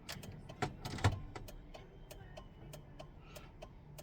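Steady light clicking, about three clicks a second, from the Towmate tow light running on a 12 V test supply, with a few louder handling knocks in the first second or so.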